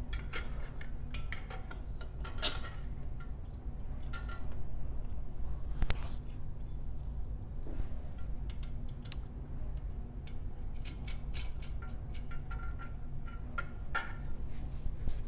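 Scattered light metallic clicks and clinks of a bolt, washers and fender bracket being handled and fitted on a bicycle's front fender mount, over a steady low hum.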